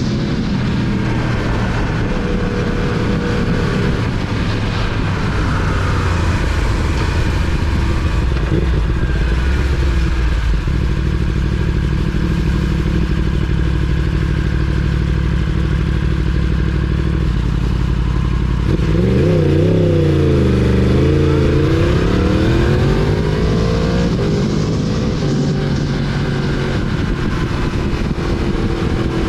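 The 2019 Yamaha R1's crossplane inline-four engine runs steadily as the bike moves along. About nineteen seconds in, its pitch drops and then climbs again.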